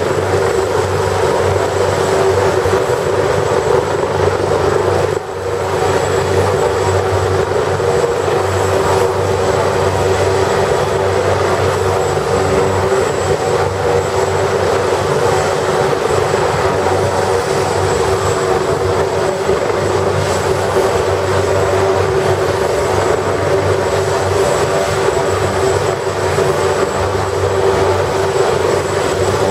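AugustaWestland AW139 helicopter running on the ground, its twin Pratt & Whitney PT6C turboshaft engines turning the main and tail rotors at a steady speed before liftoff. A constant turbine whine sits over the rotor noise, with a brief dip in level about five seconds in.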